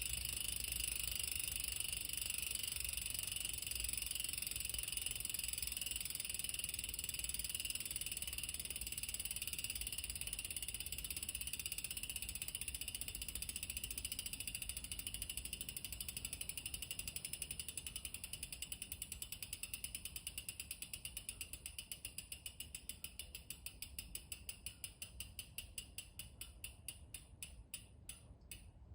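Bicycle rear hub freehub buzzing as the wheel coasts: a rapid ratcheting that slows into separate, spaced clicks and fades as the wheel spins down.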